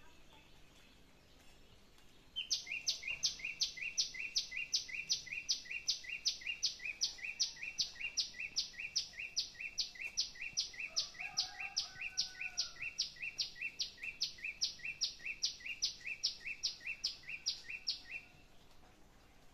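A small songbird calling a long run of sharp, high, evenly spaced notes, each a quick downward sweep with a lower second part, about two to three a second. It starts about two seconds in and stops shortly before the end.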